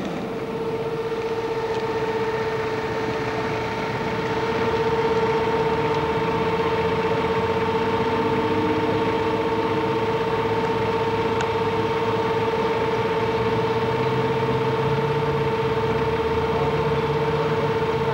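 SsangYong Musso 4x4's engine running as the vehicle crawls through a rutted off-road section, its low note stronger in the second half. Over it a steady high-pitched whine and hiss.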